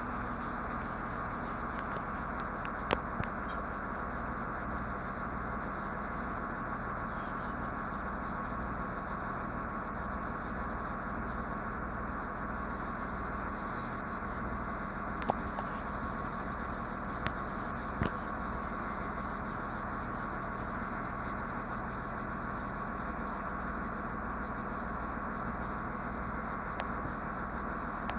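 Heavy truck engine idling steadily, with a few short sharp clicks or knocks over it.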